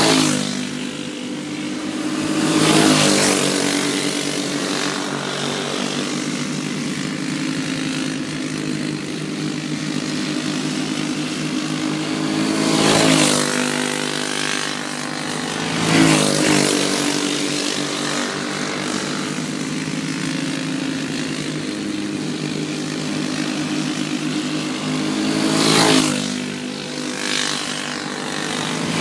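Racing go-kart engines running at speed around the track, a steady drone of several karts. About five times a kart passes close by, its engine swelling in loudness and dropping in pitch as it goes past.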